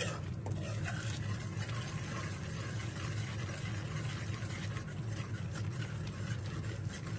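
Semolina halwa mixture bubbling and simmering in a steel kadai while a spoon stirs it, over a steady low hum.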